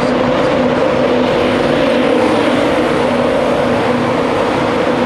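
InterCity 225 electric train (Mark 4 coaches with a Class 91 locomotive) pulling away along the platform: a steady electric hum over the rumble of wheels on the rails.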